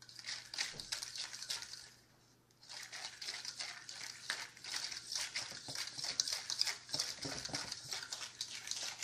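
A fork stirring and scraping quickly around a stainless steel mixing bowl, whisking a wet seasoning paste. The scraping is brisk and rattly, pauses briefly about two seconds in, then goes on steadily.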